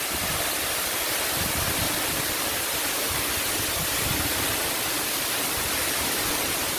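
Waterfall plunging: a steady, loud rush of falling water.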